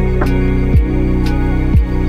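Outro music: sustained chords with two deep bass hits that slide down in pitch, and light ticks.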